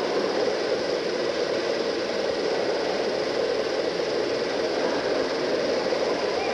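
1913 Allis-Chalmers 300-horsepower vertical triple-expansion steam pumping engine running, heard as a steady, even mechanical noise with hiss.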